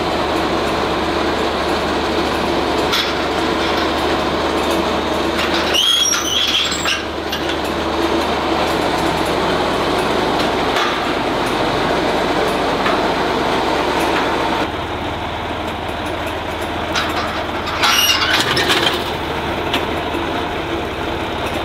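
John Deere farm tractor engine running steadily while its bale-grab attachment picks up and carries a small square bale, with brief high squeaks twice, about six seconds in and again near eighteen seconds.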